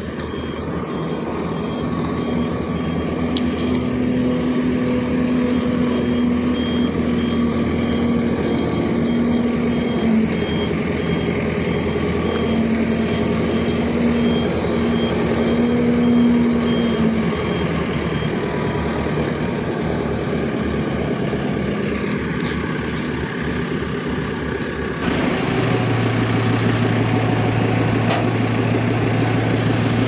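JCB backhoe loader's diesel engine running as the machine is driven on a flatbed truck's ramp, with a faint, evenly repeating high beep through the first half. A little before the end the sound switches abruptly to the engine's steady idle heard up close.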